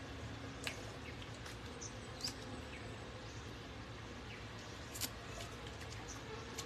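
Quiet outdoor background: a steady low hum with a few faint, short clicks and chirps, the clearest a little after two seconds and at about five seconds.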